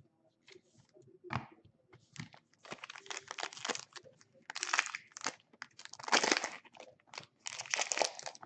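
Plastic trading-card pack wrapper crinkling and crackling as it is handled and torn open by hand. It comes in irregular bursts, sparse at first and growing busier after a couple of seconds.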